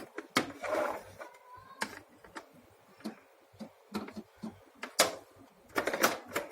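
Scattered sharp plastic clicks and knocks from handling a Fresh vacuum cleaner, with no motor running: the cleaner is dead, which the repairer puts down to no electricity reaching it.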